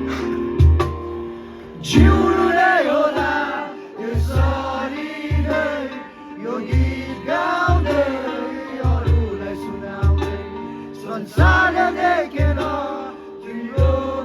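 Live rock band playing a song: singing comes in about two seconds in over guitar and a steady kick-drum beat.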